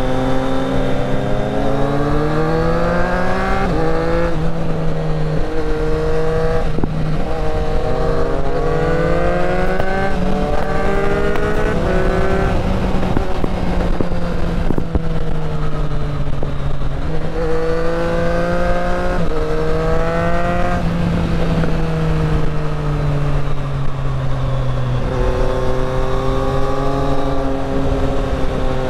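Triumph inline-three motorcycle engine pulling hard through the gears. Its pitch rises steadily, then drops sharply at each upshift, over and over.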